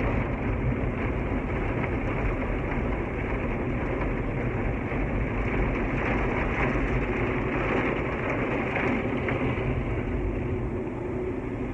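Automatic car wash heard from inside the car: a steady rush of water spray and cloth brushes working over the body, easing off slightly near the end.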